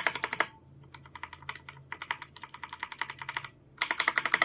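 Redragon Fizz mechanical keyboard being typed on: quick runs of sharp key clicks, a short flurry at the start, steady fast clicking through the middle and another flurry near the end.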